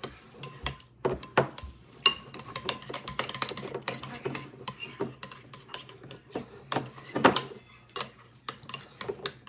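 Utensils stirring glue-based slime in bowls, with irregular clinks, taps and scrapes against the bowl sides, a few louder knocks among them. The glue is starting to thicken into slime as the activator is mixed in.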